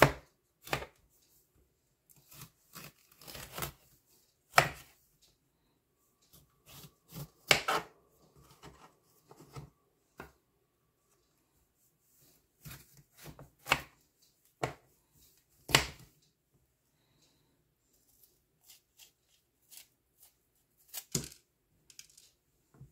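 Small kitchen knife cutting up a green bell pepper on a plastic cutting board: sharp knife clicks on the board and short crisp cuts through the pepper, coming irregularly with pauses between.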